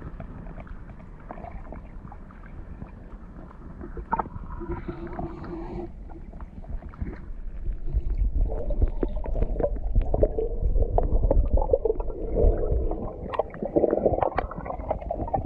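Water heard through an underwater camera's housing: a muffled, low rumbling with many small knocks and bubbling, growing louder about halfway through as the carp stirs the water close by.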